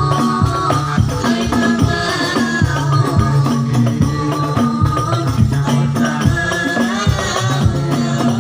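Shalawat music: singing over a dense, steady rhythm of hand percussion with rattling jingles.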